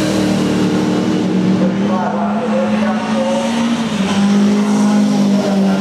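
Racing sports saloon car engines running hard at high revs as cars pass and approach along the circuit. The engine note dips and climbs again about four seconds in.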